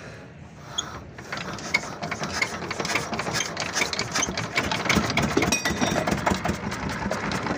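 Dongfeng diesel engine starting up about a second in and settling into a fast, steady clatter: a test run after a leaking cylinder liner that let coolant into the cylinder has been repaired.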